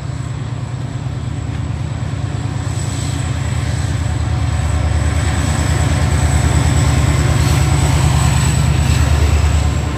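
Korail diesel locomotive hauling a passenger train, its engine running with a low pulsing rumble that grows steadily louder as it approaches and passes below, loudest about nine seconds in.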